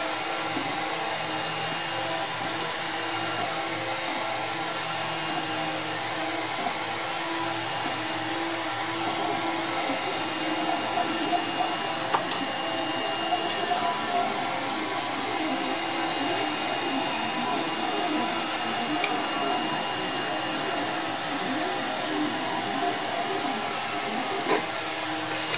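3D printer running: its cooling fans give a steady hiss while the stepper motors whine in shifting, gliding tones as the print head moves, with a few faint ticks.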